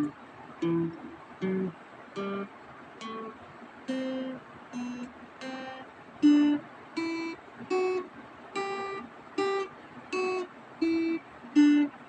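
Acoustic guitar played slowly one note at a time: a scale climbing and then coming back down, about one and a half plucked notes a second, each note left to ring and fade.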